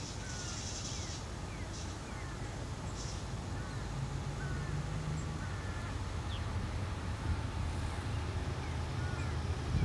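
Low, steady rumble of a distant GE ES44AC diesel locomotive approaching at the head of a freight train, slowly growing louder. Short bird calls sound over it.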